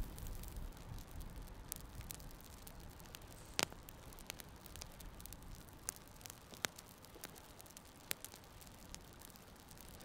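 Wood campfire crackling, with scattered sharp pops from burning kindling, the loudest about three and a half seconds in, over a soft hiss and a low rumble that eases after the first few seconds.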